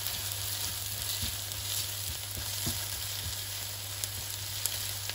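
Diced onion and tomato paste sizzling steadily in oil in a nonstick frying pan, stirred with a spatula that taps and scrapes the pan now and then.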